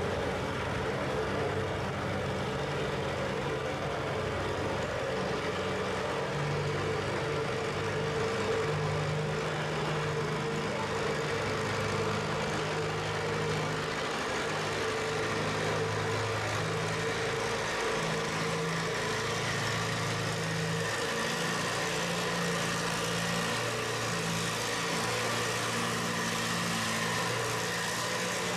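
Farmall M tractor's four-cylinder engine running under load as it pulls a weight-transfer sled, at a steady level with its pitch shifting slightly up and down.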